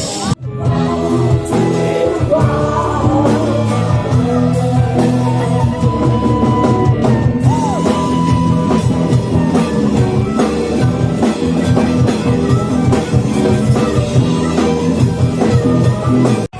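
Rock band playing live in 1960s style, with singing, electric guitar and drum kit. The sound cuts out for an instant just after the start and again near the end.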